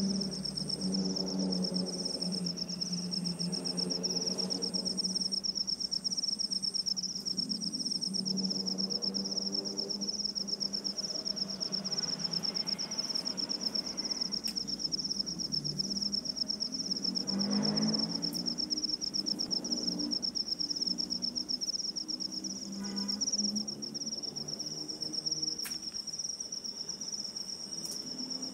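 Insect trilling steadily at a high pitch, a fast, even pulsing, with a second, higher insect chirping in short bursts over the first few seconds. A lower hum of several tones rises and fades beneath it.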